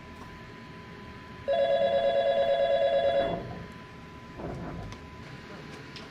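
Office desk telephone giving one electronic warbling ring, about two seconds long. A moment later the handset is lifted off its cradle.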